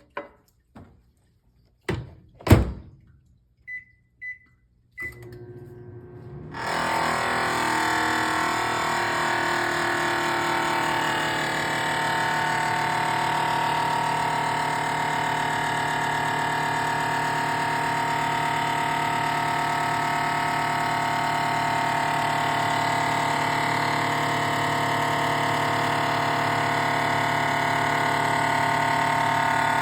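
Samsung ME21M706BAS over-the-range microwave: a few clicks and a knock as the door shuts, then three short keypad beeps. About six seconds in, the oven starts and runs with a loud, steady hum and whine, the noise that the owner presents as a fault.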